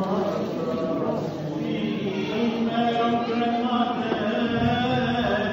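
Voices singing Greek Orthodox Byzantine chant, with long held notes.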